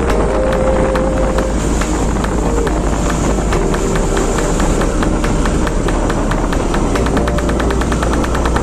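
Motorbike riding along a road: its engine running steadily under rumbling road and wind noise, with a fast, regular ticking that grows denser about halfway through.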